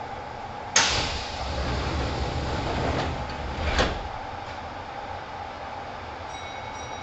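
Passenger doors of a Kintetsu 1010 series train closing: a sudden loud start about a second in, a low rumble as the doors slide, and a sharp bang as they shut about four seconds in, over the steady hum of the car.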